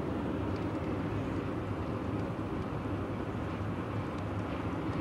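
Car driving on the open road, heard from inside the cabin: a steady hum of engine and tyres with a low drone.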